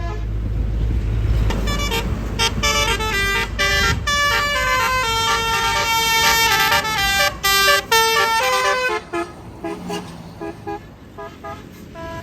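A bus's Basuri telolet horn playing a fast melodic tune, several horn tones sounding together and stepping quickly from note to note, with a low bus engine rumble under the first couple of seconds. Near the end the tune breaks into short, quieter notes.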